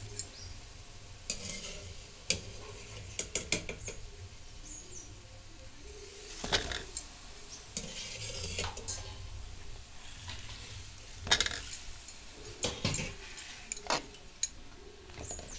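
A metal ladle clinking and scraping against a metal kadai as fried gulab jamun balls are ladled into warm sugar syrup. The knocks come irregularly, sometimes in short clusters.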